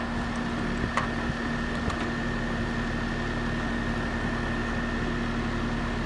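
Outdoor condensing unit of a 1990 central air conditioner running steadily after a recharge with R290 propane refrigerant, its compressor and condenser fan giving an even hum with a low and a higher constant tone. A sharp click at the start and light clicks about one and two seconds in from the refill hose fitting at the service valve.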